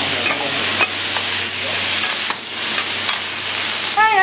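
Okonomiyaki fillings of cabbage, noodles and meat, with batter, sizzling steadily on a hot steel teppan griddle. Metal spatulas scrape and tap against the plate as the food is chopped, piled and slid under, giving short sharp clicks over the hiss.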